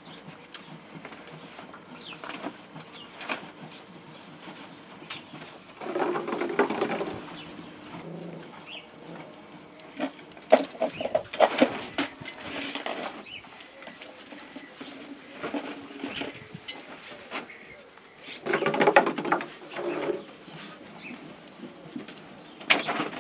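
A pigeon cooing twice, each phrase about a second and a half long, about six seconds in and again about twelve seconds later. Light knocks and scuffles come in between.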